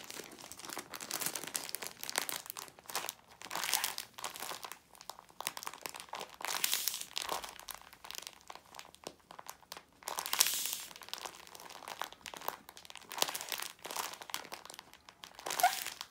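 Plastic snack bag stuffed with polyester fiberfill crinkling as it is squeezed and kneaded by hand, in repeated bursts of rustling. It is being squished to test whether it holds the right amount of stuffing.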